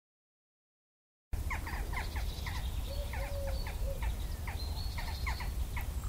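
Complete silence for about the first second, then outdoor ambience: birds chirping in many quick, short calls over a steady low rumble.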